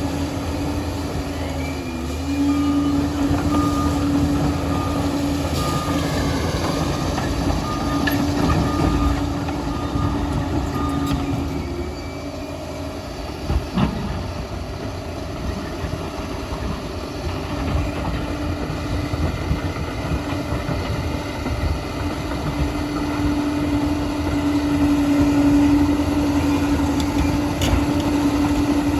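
Liebherr PR 746 crawler dozer working, its diesel engine running steadily with a constant whine. A repeated short beep sounds for several seconds early on, and there is a single knock about halfway through.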